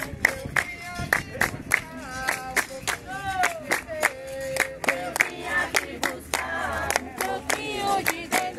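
A capoeira roda's circle singing a call-and-response song in chorus, with steady rhythmic handclapping about three claps a second.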